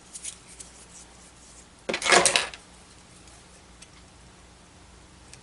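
Hands handling small paper craft pieces on a cutting mat: a few light taps and rustles, then a single louder scraping rattle lasting under a second, about two seconds in.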